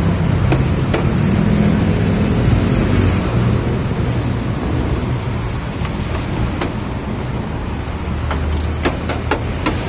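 Steady low engine-like rumble, with sharp metallic clicks of a ratchet wrench and loose terminal link plates and nuts being handled. The clicks come a few at a time early on and in a quick cluster near the end.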